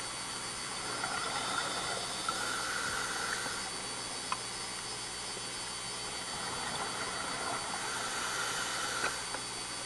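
Underwater hiss through a dive camera housing, with the diver's exhaled scuba bubbles rising in two long rushes, one early and one late, and a few sharp clicks.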